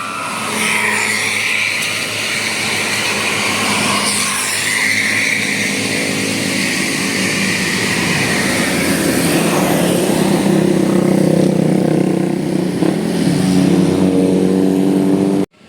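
A bus engine running as it pulls up a climb, with passing traffic noise; its note grows stronger and slowly rises over the last several seconds. The sound cuts off suddenly near the end.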